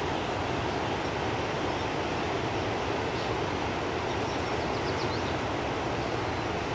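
Fast river current rushing steadily over a shallow, rocky stretch, a constant churning rush with a low rumble beneath.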